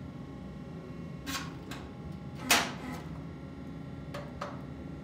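Sharp metallic clicks and clanks from tongs and a red-hot axe blank being worked in a hydraulic forging press, five in all. The loudest is a single ringing clank about halfway through. A steady low hum runs underneath.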